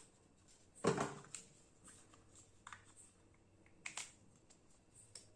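A few short clicks and knocks from a selfie stick being handled, the sharpest about a second in and again near four seconds.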